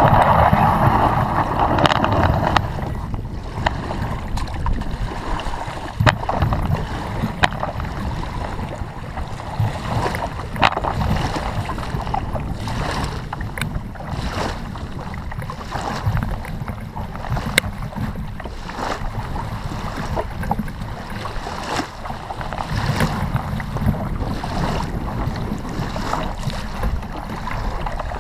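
Wind rumbling on the microphone of a camera mounted on a plastic fishing kayak at the water's edge, with water lapping and occasional sharp knocks and clicks as the kayak is handled and boarded. A louder rush of noise fills the first two seconds.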